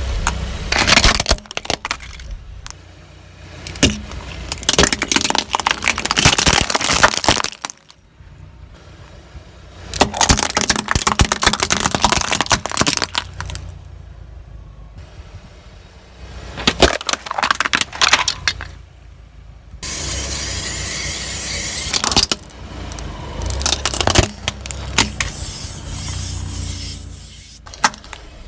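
Brittle objects crunching, cracking and snapping under a car tyre: a run of dense, sharp cracks and crackling in several separate takes with abrupt cuts between them, over a low car engine rumble.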